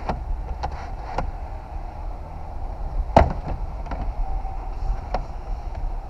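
Several light clicks and knocks from the retractable roller luggage cover of an Opel Insignia Country Tourer estate being handled by its grab handle, with one sharper knock a little past the middle. A steady low rumble runs underneath.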